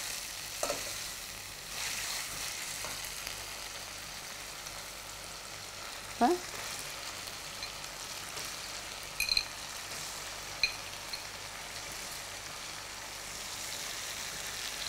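Raw chicken pieces and a tomato-onion masala frying in hot oil with a steady sizzle, in a hammered metal pan. A metal spoon stirs and scrapes the pan, with a few brief clinks.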